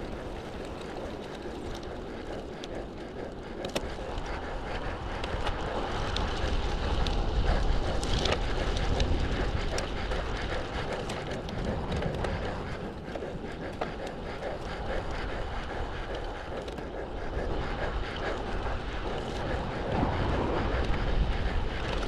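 Wind rumbling on the microphone of a road bike in motion, over the hiss of its tyres rolling on asphalt. The rumble swells a few seconds in and again near the end.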